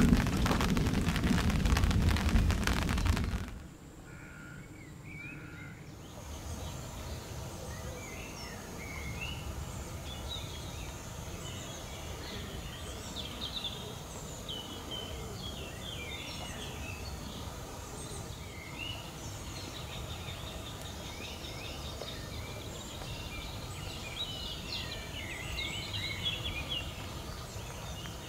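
Rain falling on the lake surface for the first few seconds, stopping abruptly about three and a half seconds in. After that, small birds sing with many short chirps and trills over a low, steady outdoor background.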